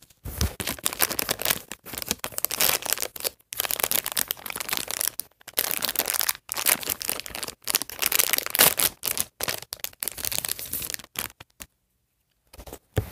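A small bag from a toy unboxing being torn open and crinkled by hand, in irregular rustling bursts with short pauses; it stops shortly before the end.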